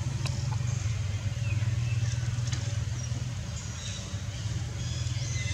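Outdoor background noise: a steady low rumble, with faint high chirps and a couple of short clicks over it.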